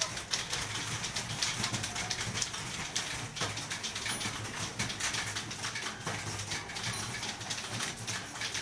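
Computer keyboard keys being typed on in a continuous stream of rapid clicks.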